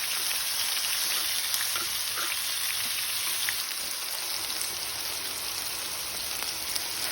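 Pork belly frying in its own fat on a cast-iron cauldron lid, a steady sizzle with a few faint pops; the meat is still cooking and not yet done.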